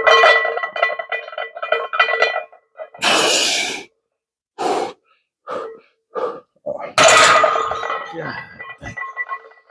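A lifter's strained breathing and grunts through the last reps of a barbell bench press, with a loud forceful exhale about three seconds in and short breaths after it. Near seven seconds a loud burst comes as the loaded barbell is racked, a metallic clink, over faint background music.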